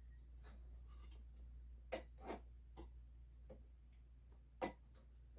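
Scattered sharp clicks and taps of the fan's mounting clips being fitted onto a Noctua CPU heatsink, six or so in all, the loudest about two seconds in and near the end.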